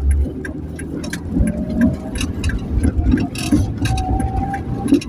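Motor vehicle running with a steady low rumble, with irregular clicks and knocks over it.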